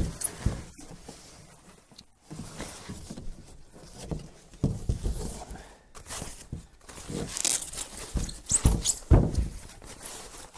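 Packing wrap being pulled off a saddle tree and handled, giving irregular rustling and crinkling, with scrapes and a few knocks from the cardboard box and packing card on the wooden bench. The rustling comes in louder bouts about halfway through and again near the end.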